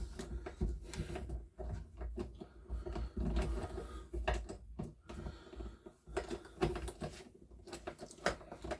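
Scattered light clicks and knocks of a spark plug and plug spanner being handled as the loosened plug is worked out of a small four-stroke leaf-blower engine, over low handling rumble.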